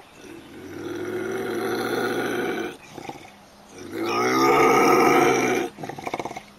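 An animal's voice: two long, low growling calls, each about two seconds. The second is louder.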